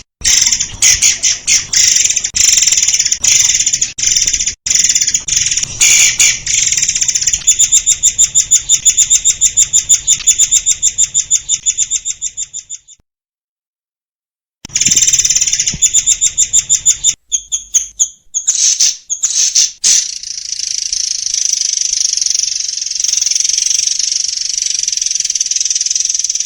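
Murai air singing loud, high-pitched rapid-fire song in dense, fast repeated notes, at one point an even rapid trill. The song breaks off into complete silence for about two seconds just before the middle, then resumes and runs into a denser, almost continuous stretch.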